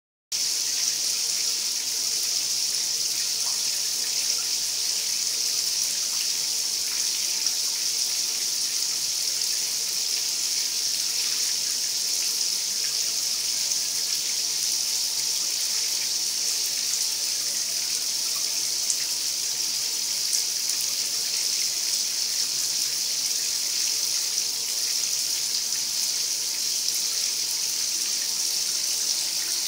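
Water running steadily in a bathtub, a constant hiss that does not change.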